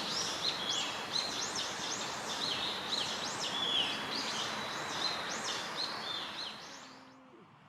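Birds calling with quick, repeated high chirps, several a second, over a steady outdoor hiss; the sound falls away about seven seconds in.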